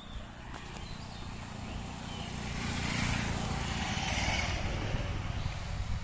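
A motor vehicle passing by, its engine and road noise growing louder to a peak about three to four seconds in, then easing off.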